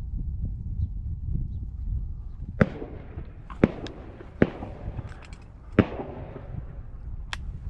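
Shotgun shots from nearby duck hunters: four sharp reports about a second apart, starting a few seconds in, each with a short echo, then a fainter fifth near the end, over a steady low rumble.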